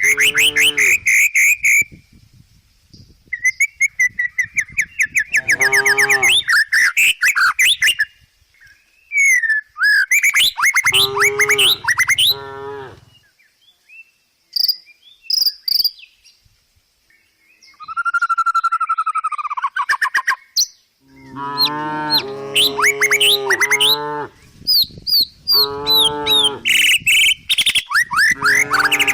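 Cattle mooing: about four low, drawn-out calls spread through the stretch. Birds chirp in rapid, repeated sweeping notes between and over the moos.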